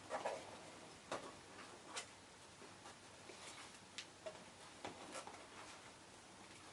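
Card-stock paper box and ribbon being handled: faint, irregular taps and light rustles, about one small click a second.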